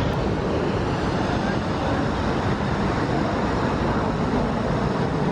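Steady traffic noise from a busy multi-lane road, with the voices of a crowd of people mixed in.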